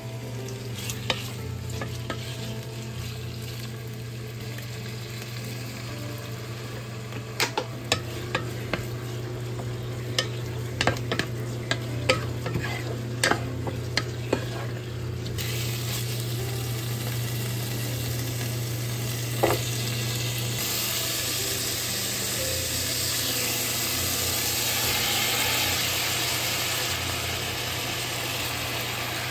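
Chicken pieces sizzling in a nonstick pot over a steady low hum, with a wooden spatula clacking and scraping against the pot as they are stirred. About halfway through, the sizzle turns suddenly louder and hissier as sake is sprinkled over the hot chicken.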